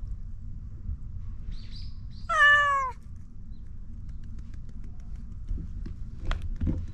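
A cat meows once, a single call of about half a second that drops in pitch at the end.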